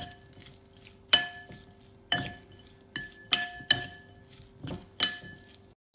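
Metal spoon clinking against a ceramic bowl as a dish of chicken choila is stirred. About eight sharp, ringing clinks come at an uneven pace.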